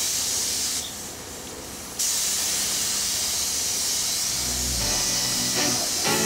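Gravity-feed compressed-air paint spray gun hissing steadily as paint is sprayed. The hiss drops quieter for about a second and then comes back at full strength.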